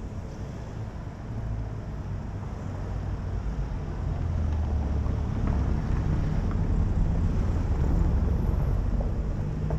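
A motor engine running with a low hum, growing louder over several seconds as it draws nearer.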